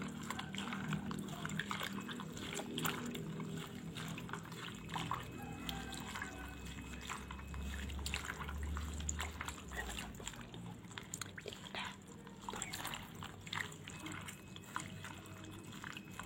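Hands squeezing and kneading fresh betel leaves in a bowl of water, giving irregular small splashes, drips and wet squelches.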